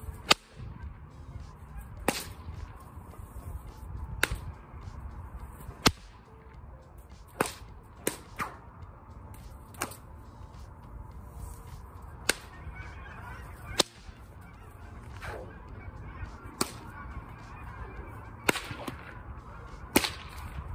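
A brand-new 10-foot bullwhip cracked over and over, about a dozen sharp cracks, one every second and a half to two seconds, with two in quick succession about eight seconds in.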